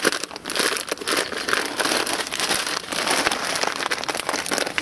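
Plastic zip-lock bag of muesli crinkling as it is handled and pulled out of a cloth sack, with dense, irregular rustling throughout.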